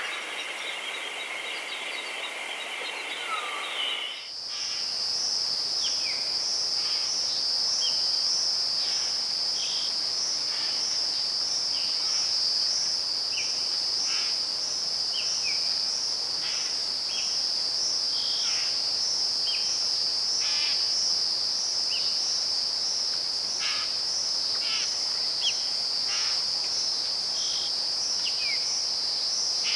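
Wild birds calling, then about four seconds in an abrupt change to a continuous shrill insect trill. Short chirping bird calls come every second or so beneath the trill.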